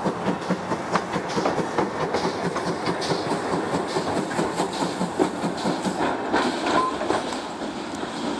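Wagons of a slow goods train rolling past, their wheels clicking over the rail joints in a quick, steady rhythm.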